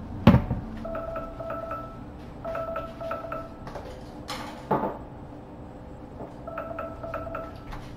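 A ceramic bowl knocking against the cutting board and countertop as it is picked up. There is a second knock a few seconds later. Underneath, short runs of quick chiming tones repeat every couple of seconds.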